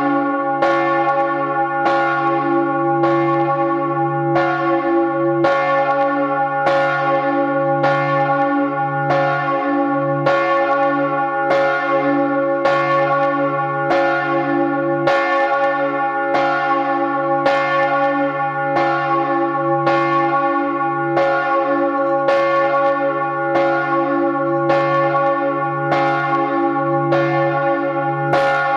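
Large bronze church bell, the Michaels-Glocke cast in 1950 by Georg Hofweber, swinging and ringing on its own, heard close up in the belfry. Its clapper strikes at an even rhythm a little over a second apart, each stroke ringing on over a deep, steady hum that carries between the strikes.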